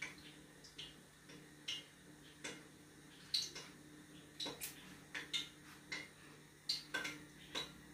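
Irregular light clicks and taps, roughly two a second and some in quick pairs, over a steady low hum.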